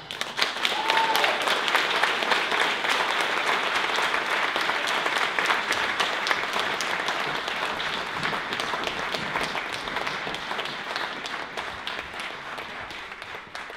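Audience applauding, many hands clapping at once, the applause slowly dying away over the last few seconds.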